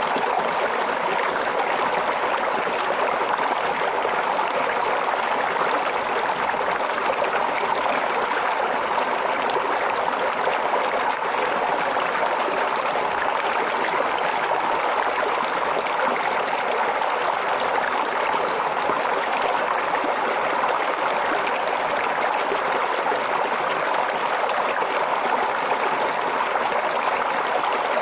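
Stream water babbling and trickling steadily at an even level.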